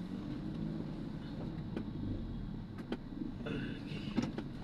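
Car cabin noise while driving: a steady low engine and road rumble, with a few light clicks.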